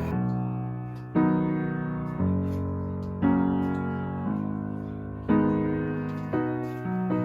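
Background music: piano chords struck about once a second, each ringing and fading before the next, with changes coming quicker near the end.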